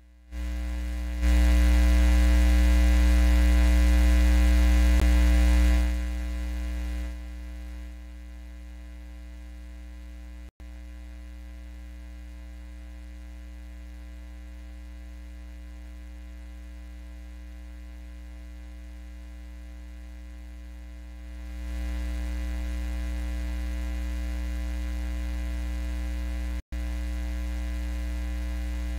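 Steady electrical mains hum in the sound system's audio feed, its level jumping up and down in steps, loudest for a few seconds near the start and rising again past the middle. It cuts out for an instant twice.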